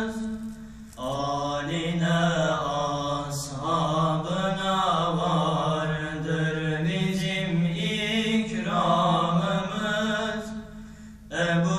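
Two young male voices singing an ilahi, a Turkish Islamic hymn, together in long, bending phrases with held notes. The singing breaks off briefly about a second in and again near the end.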